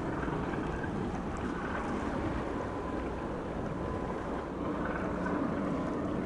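Steady low rumble of ship machinery, with wind buffeting the microphone and a faint steady whine.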